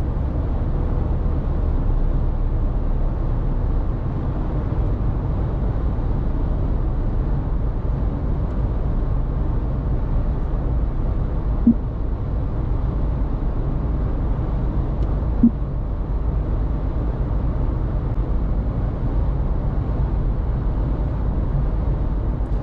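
Steady low drone of a Fiat Pulse 1.0 turbo cruising on the highway, heard inside the cabin. Two short low blips about twelve and fifteen seconds in.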